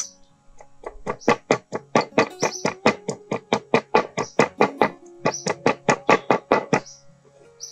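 Cleaver chopping chillies on a wooden cutting board in a fast, even run of about five strokes a second, stopping shortly before the end, over background guitar music.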